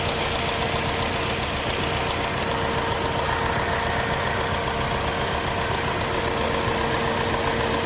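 Hyundai Sonata's four-cylinder gasoline direct-injection engine idling steadily.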